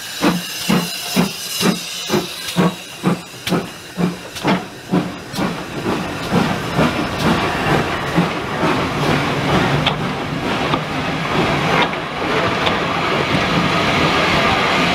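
Steam locomotive working a passenger train past, its cylinder drain cocks blowing: sharp hissing exhaust beats about two a second that fade out after about five seconds. The coaches then roll past with a steady rumble and occasional clicks of wheels over the rails.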